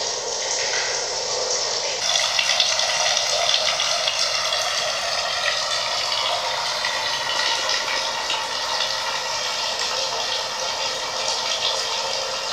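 Water running in a steady, continuous rush that grows fuller and brighter about two seconds in.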